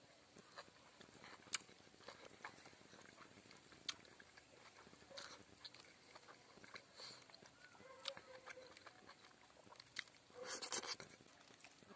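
Faint, scattered clicks and crinkles of fingers mixing rice and pork on a leaf plate, then a short burst of mouth noise from eating (chewing and lip-smacking) as a mouthful goes in near the end.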